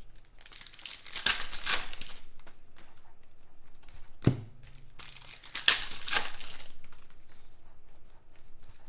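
Glossy basketball trading cards being slid and flipped through by hand, with two long stretches of rustling and a single sharp tap about four seconds in.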